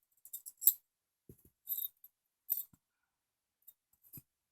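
Small metal parts clicking and tapping, about seven short clicks spread over the few seconds, the loudest near the start: a steel pin punch working the old latch spring out of an AR-15 charging handle.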